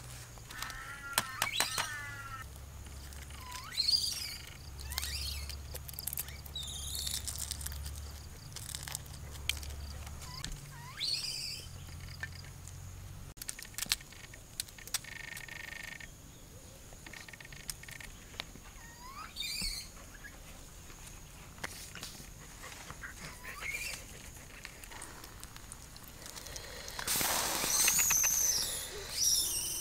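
Wild birds calling: short chirps and a quick trill, repeated every few seconds, with scattered light clicks and a louder rush of noise and chirping near the end.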